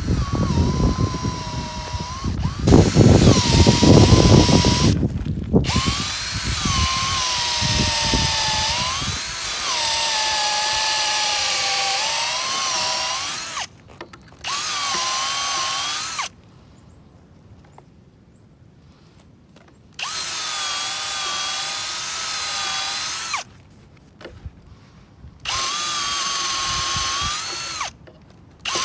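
Power drill boring through a timber with a long bit, its motor whine sagging in pitch under load and recovering. Heavy crunching of the bit chewing through the wood fills the first several seconds. The trigger is released and squeezed again several times, with one longer pause near the middle. This is the second half of a through-hole, bored from the opposite side to meet the first.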